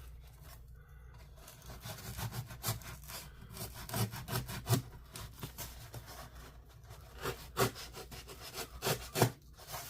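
A cardboard shipping box being worked open at its taped ends: irregular scraping, rasping strokes of cardboard and tape, coming thicker and louder in the second half.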